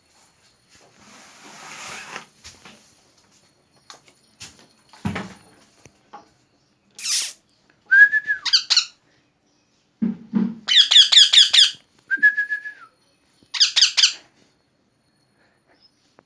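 A pet parrot calling in the second half: a harsh screech, short level whistles and fast runs of squawky chirps. This follows faint rustling and a knock about 5 seconds in.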